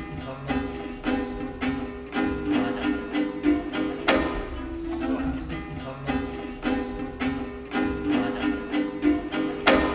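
Komuz, the three-string Kyrgyz lute, strummed in a quick, even rhythm as a lively tune, with a sharp, loud stroke near the end.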